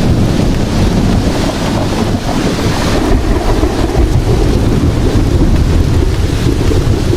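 Heavy rain falling steadily: a dense, unbroken hiss with a strong low rumble beneath it.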